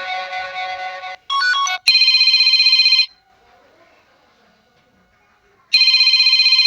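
Ringtone previews on a Sony Xperia XA1 Ultra phone, one after another. A melodic ringtone cuts off about a second in, a brief snippet of another follows, then a rapid pulsing electronic ring plays for about a second, stops, and starts again near the end.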